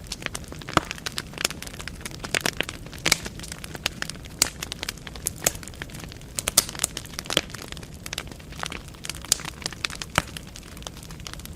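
Wood fire burning in a fireplace: logs crackling with irregular sharp pops and snaps over a low steady hiss.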